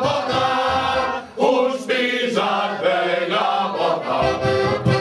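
A group of men singing a pasquella, a Romagnol dialect folk carol, with piano accordion accompaniment. The singing breaks off briefly about a second and a half in, between phrases, then carries on.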